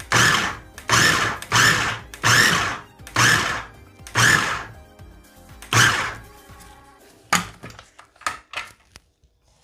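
KitchenAid food processor pulsed in short bursts, about seven pulses roughly a second apart, chopping cucumber coarsely. This is followed by a few short sharp clicks and knocks near the end.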